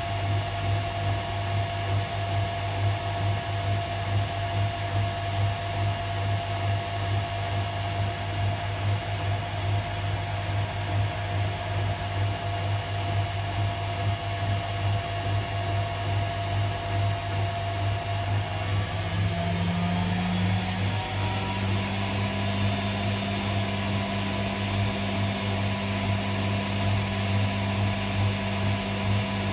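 Hotpoint WMA37 Aquarius washing machine running on a test spin: a steady motor drone with a regular pulsing. About two-thirds of the way through, the motor whine climbs in pitch as the drum speeds up.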